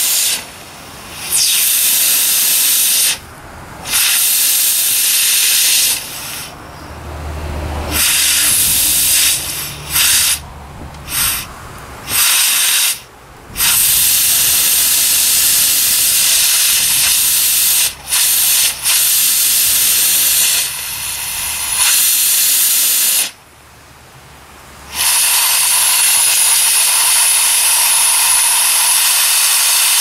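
Steam hissing hard from a steam injector on a fire-tube boiler while it is being started, the steam spilling out around its overflow before it takes up water. The loud, steady hiss cuts off and comes back several times, and a low rumble sits under it through the middle.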